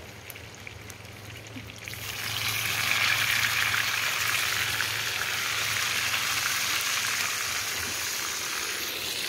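Fish frying in hot oil in a pan over a wood fire: a steady sizzle that swells suddenly about two seconds in, as another fish goes into the oil, and stays loud.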